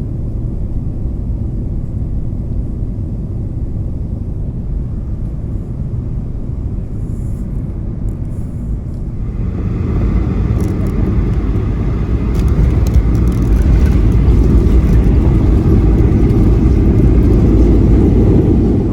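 Jet airliner's engines and rumble heard from inside the cabin, swelling louder about halfway through as for the takeoff roll.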